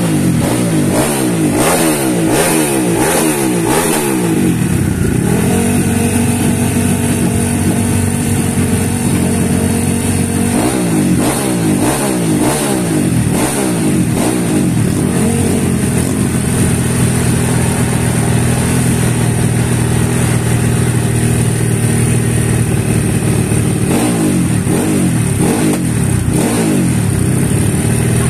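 Motocross bike engine revved while the bike sits on its stand: quick repeated throttle blips, then held at a steady high rev for several seconds, twice, with more blips in between and near the end.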